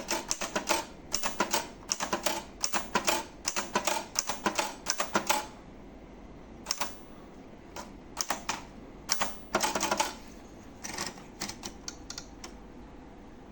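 Hermes Baby portable manual typewriter being typed on: a fast, steady run of key strikes for about five seconds, then slower scattered strokes in short groups that stop shortly before the end.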